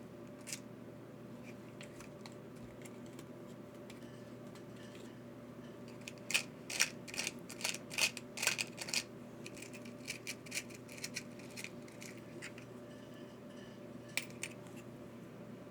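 Small metal screws and hardware clicking and rattling as they are picked through by hand, in a dense run of clicks for a few seconds in the middle and a few single clicks before and after, over a steady low room hum.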